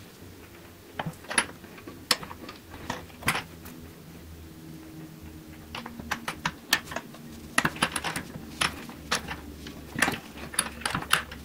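Irregular small metallic clicks and taps from handling a brass wire terminal and its parts against the jaws of a steel bench vise.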